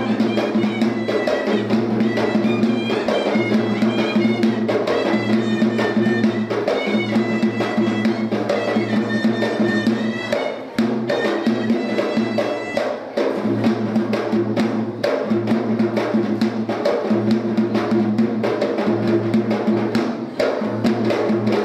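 Sri Lankan low-country drum (yak bera) played with both hands in fast, dense Kolam dance rhythms, with a high melody line running over the drumming in places.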